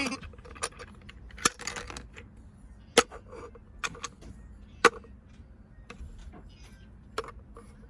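Pieces of a toy shape sorter knocking and clacking as they are handled and dropped in: about six sharp, separate knocks at irregular intervals, some with a brief ring.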